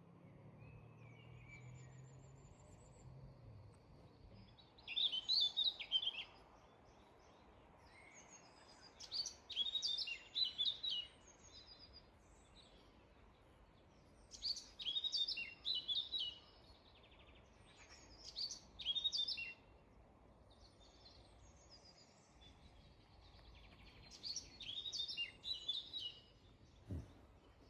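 Songbirds singing: bright phrases of quick, high notes, each a second or two long, repeat every four to five seconds, with fainter calls between them.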